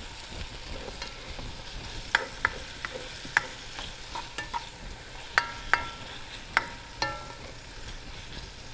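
Beef and chopped vegetables sizzling in hot oil in a large metal pot, stirred with a spatula that knocks against the pot about ten times with short ringing clinks. The meat is browning before water goes in.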